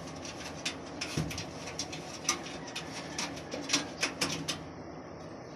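Clicks and light taps of a PC case's solid side panel being handled and fitted onto the case, with a dull thump about a second in.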